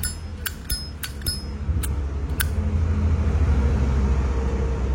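Silver-plated Zippo lighter clinking: about half a dozen sharp metallic clicks of the lid snapping open and shut and the flint wheel striking, some with a high ring, in the first two and a half seconds. A steady low rumble lies underneath.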